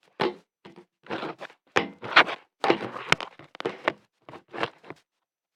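A quick, irregular run of handling noises: short squelches and knocks, with one sharp thunk about three seconds in.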